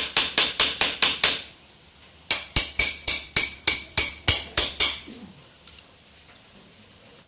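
Rapid metal-on-metal taps with a short ring, about four a second, in two runs with a pause of about a second between them. This is a spanner and screwdriver knocking at a bicycle's bottom-bracket lockring to tighten it, clamping a pedal-assist sensor in place.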